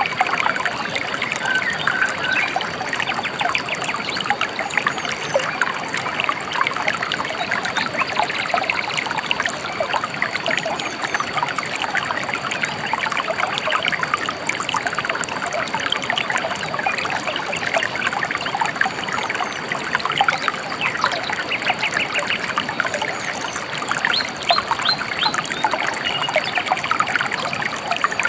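A shallow river trickling and bubbling over stones: a steady, even babble of running water.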